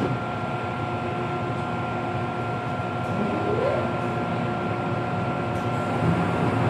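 Steady interior hum of an MTR M-train subway car standing with its doors shut, with a high steady tone and a short rising whine about three seconds in. Near the end the low rumble grows as the train begins to pull away.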